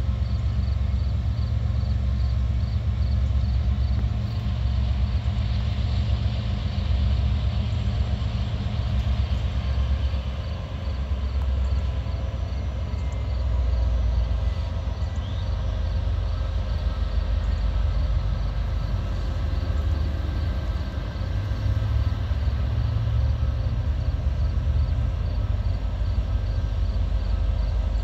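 Diesel freight train approaching from a distance: a low, steady rumble with a faint engine drone above it.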